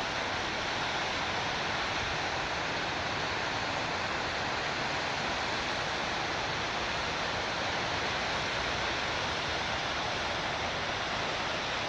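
Lesmurdie Falls' water cascading, a steady even rush with no change.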